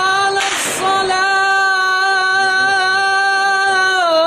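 A man's voice chanting the adhan (Islamic call to prayer) unaccompanied, holding a long, high, steady note. There is a quick breath about half a second in, and the pitch dips and bends back up near the end.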